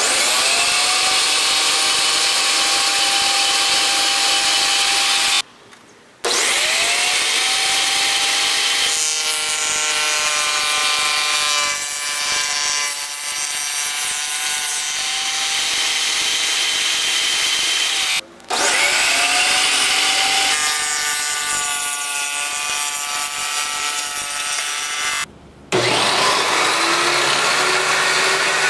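Jobsite table saw fitted with a dado blade, starting up with a rising whine that settles into a steady run, then cutting wood with a wavering, labouring tone. The sound breaks off abruptly three times, and the saw starts up again after each break.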